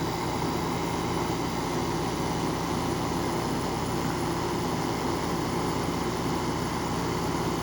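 Amana ACB065R 6,000 BTU window air conditioner running, its fan giving a steady rushing noise over a low hum from its Tecumseh rotary compressor.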